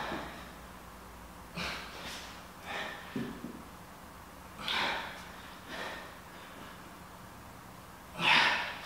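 A man breathing hard during an exercise set: about eight short, breathy exhales at uneven intervals, the loudest near the end.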